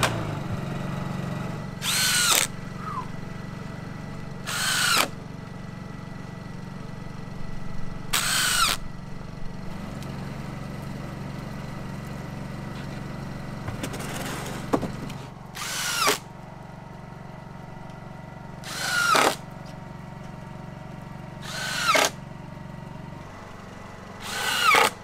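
Power drill driving screws into wooden boards, about eight short runs every few seconds. Each run's whine falls in pitch as the screw bites and seats. A steady low engine hum runs underneath.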